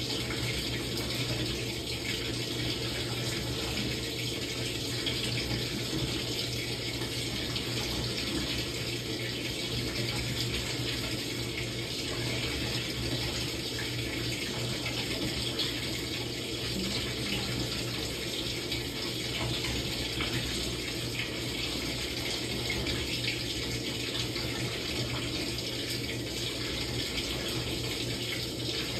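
Samsung top-load washing machine with water running steadily in its tub during a quick wash cycle, over a constant low hum.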